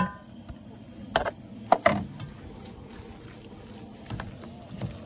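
A utensil knocking a few times against a stainless steel mixing bowl in the first two seconds, then softer scraping and handling as minced meat and herbs are mixed.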